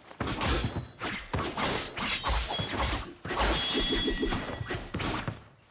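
Sword-fight sound effects from a film: a fast run of katana clashes and hits, several of them leaving a brief high metallic ring.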